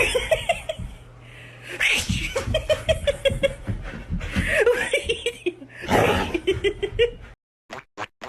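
A person laughing hard in four bouts. Each bout opens with a sharp, explosive burst and runs into a quick string of high-pitched "ha-ha-ha" pulses. The laughter cuts off suddenly near the end.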